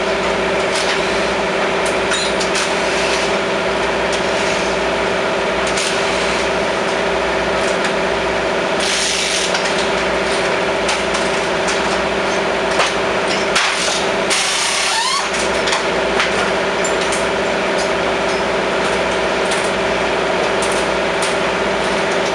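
Pit crew working on a Top Fuel dragster with hand and power tools over a steady mechanical hum, with scattered clicks and clanks. Two short hisses come about nine and fourteen seconds in.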